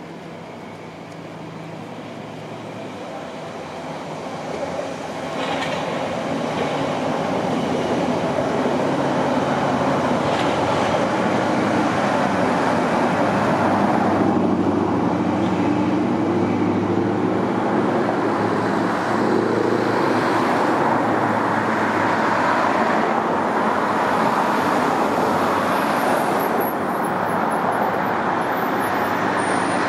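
A Class 450 Desiro electric multiple-unit train runs on the track. The even rumble grows louder over the first several seconds, then holds steady as the twelve-car train approaches and draws near.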